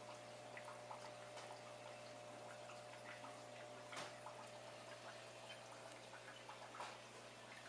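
Faint aquarium water sounds: scattered drips and small ticks over a steady low hum from the tank's filter pump, with a louder tick about four seconds in and another near the end.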